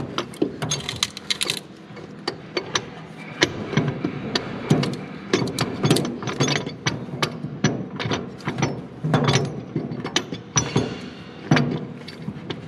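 Irregular metal clicks and knocks from a Chelsea 221-series PTO being worked by hand against the Allison transmission's PTO opening as it is pushed to seat.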